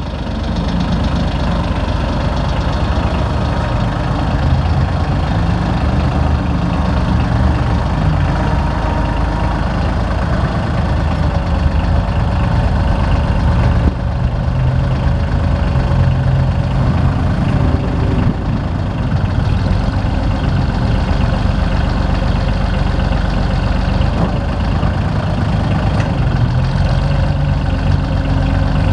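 Mahindra tractor's diesel engine running steadily, its note rising and falling a little.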